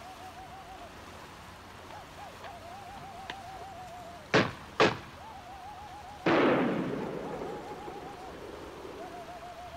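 Musket gunfire: two sharp shots about half a second apart, then a louder shot that echoes and fades over about two seconds. A held, wavering musical note runs underneath.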